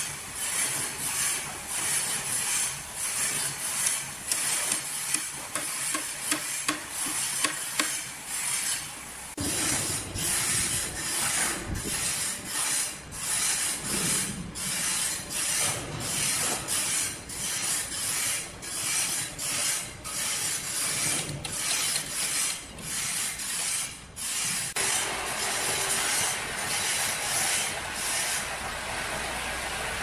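Large log band saw mill running: a bright hiss with rapid, repeated clattering, and a low rumble that joins about a third of the way in. Near the end the sound settles into an even, steady hiss as the blade cuts through the log.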